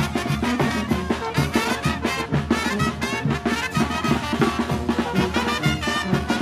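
Brass band with trumpets and drums playing a fast dance tune with a steady quick beat: the brinco music that chinelo dancers dance to.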